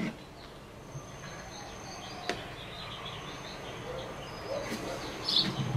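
Low background noise with faint short high chirps, stronger near the end, and a single light click about two seconds in.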